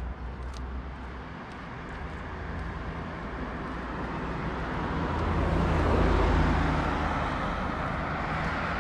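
A road vehicle passing by, its engine and tyre noise building gradually to its loudest about six seconds in and then easing off.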